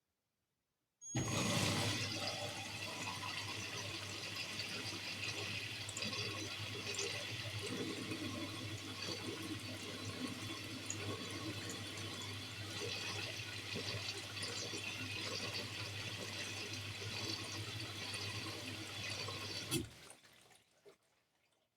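Bosch Series 4 washing machine in its final rinse: water rushing and sloshing in the drum over a steady low hum. It starts abruptly about a second in and stops suddenly near the end.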